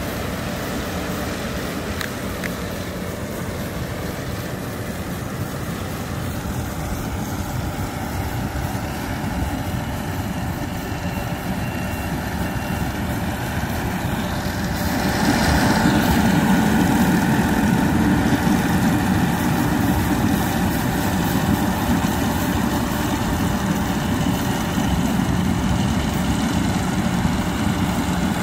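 Rice combine harvester running steadily as it cuts and threshes standing rice, its engine and threshing machinery a continuous drone that grows louder about halfway through.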